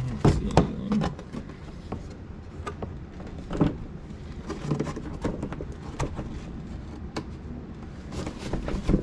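A plastic engine cover being handled and fitted back over a Jeep Wrangler JKU's 3.6 V6 engine: scattered knocks and clicks of plastic against the engine, the loudest about three and a half seconds in.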